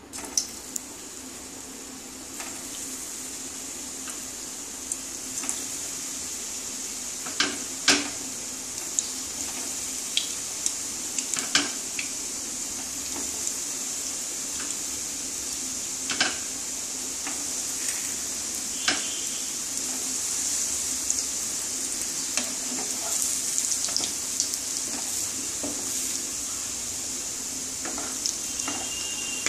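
Balls of egg-and-flour dough shallow-frying in hot oil in a non-stick kadai: a steady sizzle that slowly grows louder as the pan fills, broken by a few sharp clicks and taps.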